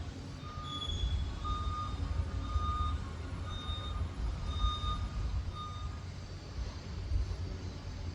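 Liebherr PR 746 Litronic crawler dozer's diesel engine running with a low rumble while its reverse alarm beeps, about six beeps roughly a second apart, stopping about six seconds in: the dozer is backing up.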